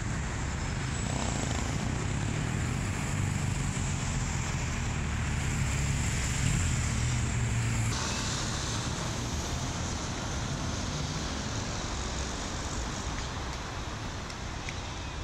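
Street traffic: cars running past on a busy roundabout, a steady low rumble that swells a few seconds in, then changes suddenly about eight seconds in, with less rumble and more hiss.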